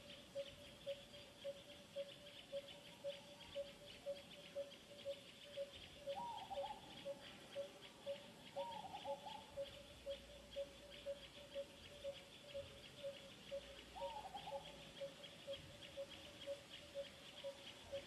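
Faint outdoor ambience: insects chirring steadily with a fast ticking, over an evenly repeated low note about two and a half times a second. Three short wavering calls come through, about a third of the way in, just before the middle, and about three quarters of the way in.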